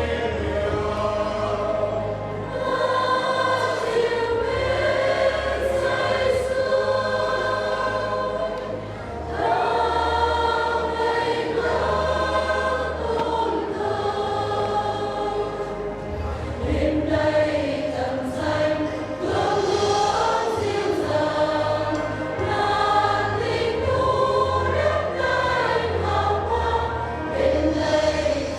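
Church choir singing a hymn in several voices, with a low instrumental bass line under it that changes note every few seconds.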